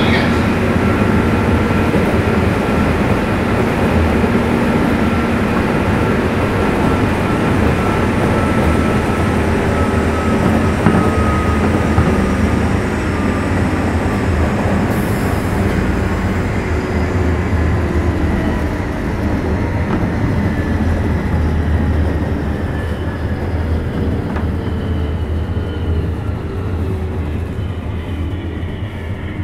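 JR 201 series armature-chopper electric train running, heard from on board: the chopper's whining 'jet sound' over the rumble of the wheels, with several whining tones falling slowly in pitch and the sound easing off toward the end as the train slows.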